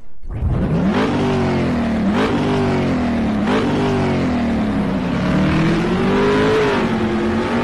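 An engine revving hard in repeated blips: the pitch jumps up three times, about a second and a quarter apart, sinking back after each, then climbs more slowly and falls away again.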